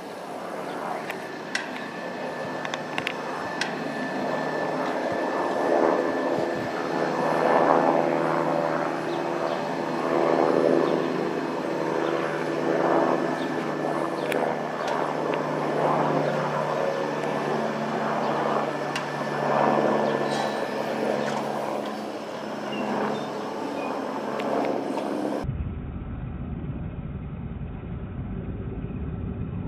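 Light helicopter flying overhead: a steady drone of rotor and engine with a thin high whine. It grows louder through the middle as the helicopter passes, then eases off. Near the end the sound turns abruptly duller and muffled.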